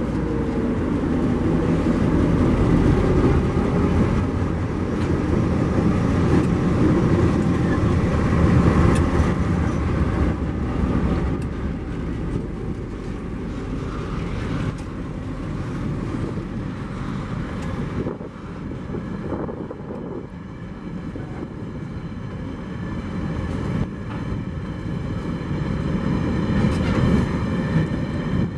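TasRail ore train passing: the diesel locomotives' engines are loud at first, then give way to the steady rumble and clatter of ore wagons rolling by on the rails. A thin high whine comes in about two-thirds of the way through.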